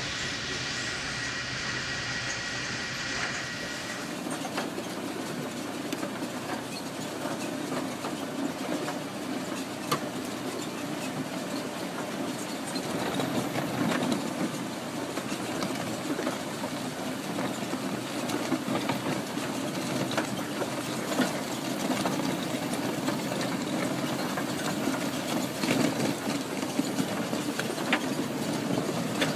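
Boom-mounted rotary rock-cutting head grinding into rock and soil: a steady heavy grinding rumble with many short irregular knocks of breaking rock. A steady high whine in the first few seconds stops when the sound changes abruptly about four seconds in.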